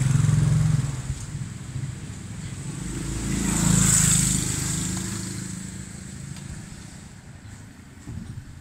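Motor vehicles going past: an engine hum is loud in the first second, then another vehicle swells to its loudest about four seconds in and fades away.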